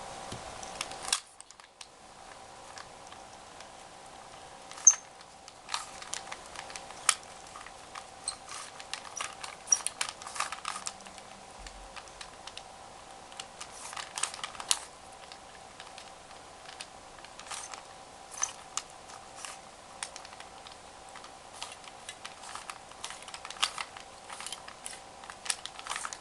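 3x3 Rubik's Cube being twisted by hand: irregular plastic clicking and clacking as its layers are turned, some clicks sharper than others, over a faint steady hum.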